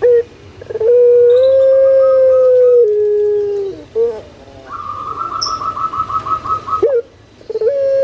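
Puter pelung (Barbary dove, Streptopelia risoria) cooing: long, drawn-out held coos, the first stepping down in pitch near its end, each led in by a short note. Between them comes a higher, fast pulsing trill lasting about two seconds.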